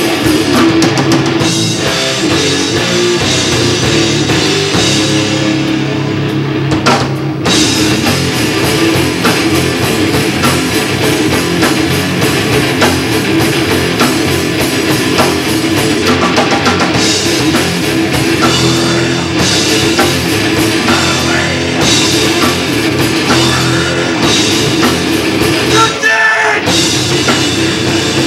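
Heavy rock band playing live: distorted electric guitar and bass over a drum kit, loud and dense, with short breaks in the sound about seven seconds in and again near the end.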